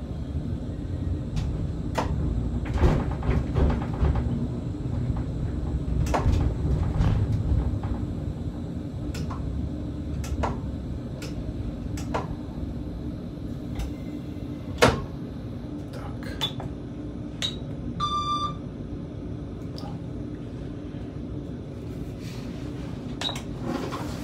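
Tram pulling away, heard from inside the driver's cab: a steady low rumble, heaviest for the first several seconds and then easing, with scattered sharp clicks and knocks. A short high beep sounds about 18 seconds in.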